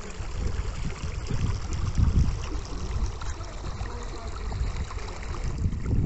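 Wind rumbling and buffeting on the microphone, swelling and easing, over a steady rushing hiss like a small stream.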